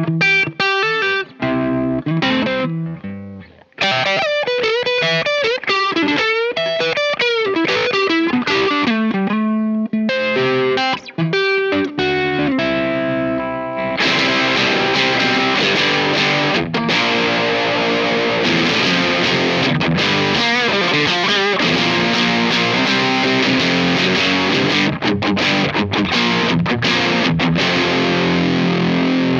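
Electric guitar played through a KMA Machines Fuzzly Bear 2 silicon fuzz pedal. It begins with a run of separate picked notes, and about halfway through turns to a thick, distorted, sustained fuzz sound.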